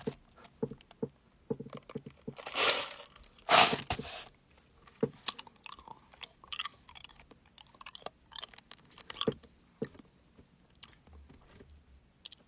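A person biting and chewing something crunchy close to the microphone: two loud crunching bites a few seconds in, then a run of smaller, irregular chewing crunches.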